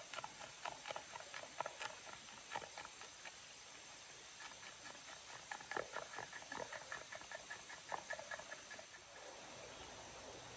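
Chef's knife chopping garlic on a wooden cutting board: runs of quick, irregular knocks, some in rapid series, stopping about a second before the end.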